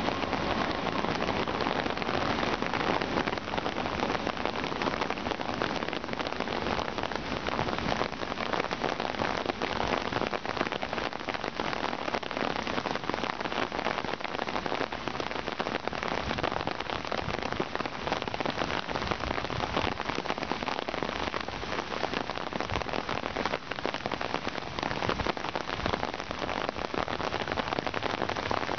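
Steady rain falling and spattering on the ground and surrounding surfaces: an even hiss dotted with many separate drop ticks.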